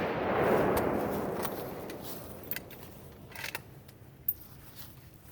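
Rolling echo of a bolt-action rifle shot dying away over about two seconds, followed by a few short metallic clicks and a sharper clack.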